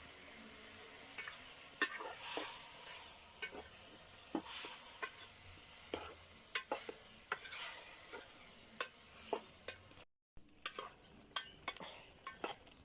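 A spoon stirring and scraping in a pot of eggplant with frequent clicks against the pot, over a sizzling hiss as the little water just added heats up. The hiss swells a few times, and the sound cuts out for a moment about ten seconds in.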